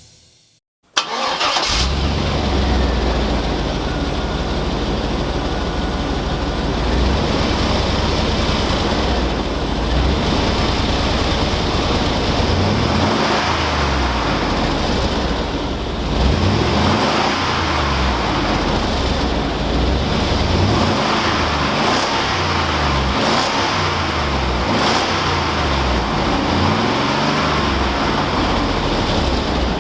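1999 GMC Yukon's 5.7-litre V8 breathing through four Cherry Bomb mufflers in a row (Vortex, Glasspack, Extreme and Turbo), starting up about a second in and running steadily at idle. From about twelve seconds in it is revved up and down again and again.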